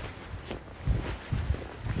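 Footsteps on outdoor ground: a few low thuds roughly half a second apart over a light rustle.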